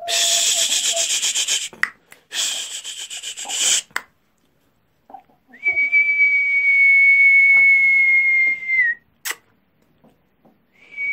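Two bursts of rasping, rubbing noise. Then a person whistles one long steady high note, which dips slightly as it stops, and starts a short second whistle near the end.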